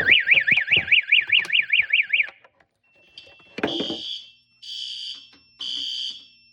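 Building fire alarm system going off. First an electronic siren warbles rapidly, about four sweeps a second, for about two seconds. After a short break the alarm horns sound in pulses about once a second over a steady high tone: the system is working.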